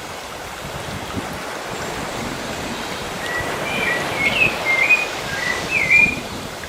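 Steady wash of sea waves, with a bird singing a run of short whistled notes, some sliding, from about halfway through.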